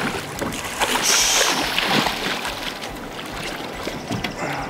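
Water splashing and sloshing as a hooked spring chinook salmon is scooped into a landing net beside a drift boat. There is a louder burst of splashing about a second in.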